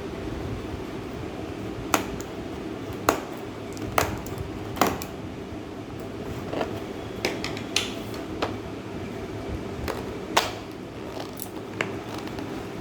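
Sharp clicks and taps from handling and opening the keyboard's plastic packaging, irregular: four strong ones in quick succession in the first half and more scattered ones later, over a steady low hum.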